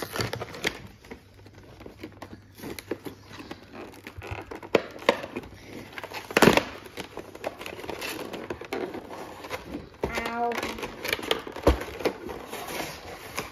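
Cardboard box and plastic card tray being pried open and handled: scattered clicks, crinkles and rustles, with one sharp knock about six and a half seconds in and a dull thud near the end.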